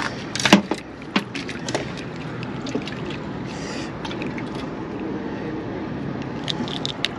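Steady rumble of a fishing boat under sharp clicks and knocks of rod and reel as a small fish is brought in. The clicks come in a cluster in the first two seconds and again near the end, with a short hiss in the middle.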